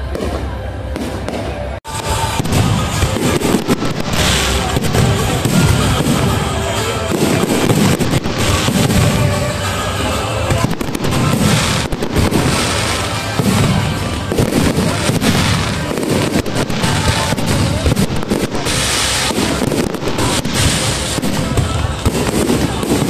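A fireworks display going off: many bangs and crackling bursts of aerial shells in quick succession, dense and continuous from about two seconds in.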